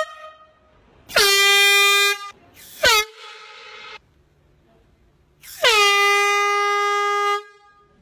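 Air horn blasting three times: a blast of about a second, a short burst about a second and a half later, then a longer blast of nearly two seconds near the end. Each blast drops quickly in pitch at the start, then holds one steady, piercing tone.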